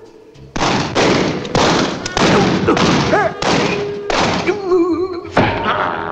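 Cartoon soundtrack effects: a run of about eight loud, crashing noisy hits, roughly two a second, starting about half a second in, with short wavering tones between them in the middle and near the end.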